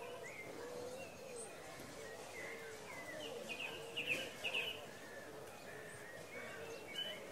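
Daytime town-square ambience: a low murmur of distant voices with birds chirping over it, a quick run of chirps about halfway through.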